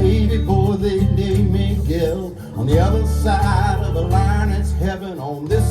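Recorded song played through Piega 811 loudspeakers driven by a Hegel H600 amplifier: guitar over a deep, steady bass line, with a melody that slides up and down in pitch.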